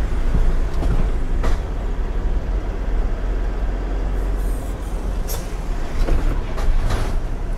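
Ashok Leyland Dost pickup truck on the move: a steady low engine and road rumble, with a few brief knocks or rattles about a second and a half in and again near the end.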